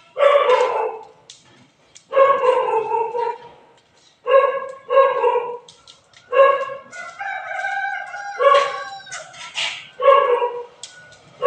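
Dog barking and yelping: a run of about eight short, high-pitched calls with short pauses between them.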